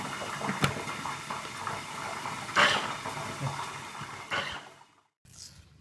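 Small electric capsule blender running, its blades chopping mango pieces with a few sharp knocks against the jar. The motor noise stops about four and a half seconds in.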